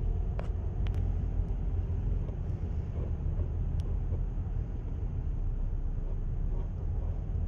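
Steady low outdoor rumble, with a few faint clicks early on and just before the middle.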